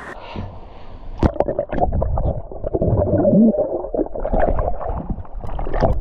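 Muffled water heard through a camera held beneath the surface of a stream pool: gurgling and sloshing, with a few sharp knocks, the first about a second in.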